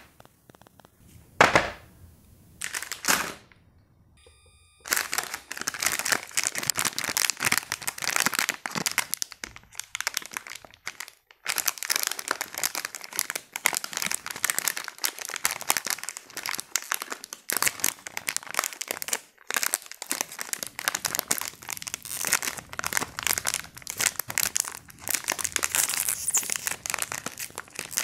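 A foil-lined ice cream wrapper crinkling and tearing as gloved hands handle it and pull it open. The crinkling runs almost without a break from about five seconds in. Before it come two short knocks as a plastic cutting board is set down.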